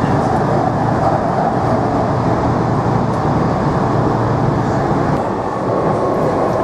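A passenger train running: a loud, steady rumble and rush of noise that cuts in abruptly. A faint steady whine comes in near the end.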